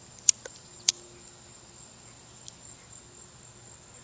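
Crickets chirring steadily in a high, thin tone, with two sharp clicks within the first second from a lighter being struck at a Roman candle's fuse.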